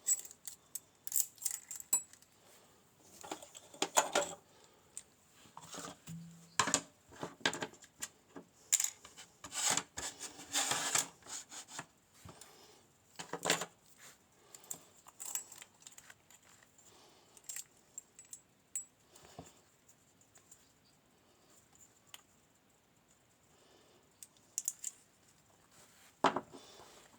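Small metal lock parts and tools clinking and clicking irregularly as a pin-tumbler lock is handled and taken apart. The clicks come thick for the first dozen seconds, thin out, and bunch again near the end.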